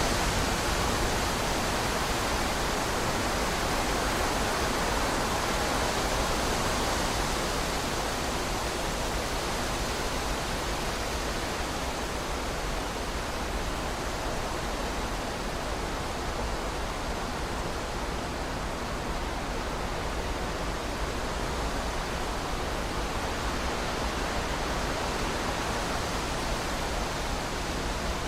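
Strong wind blowing in a steady, even rush, a little louder in the first few seconds and easing slightly after that.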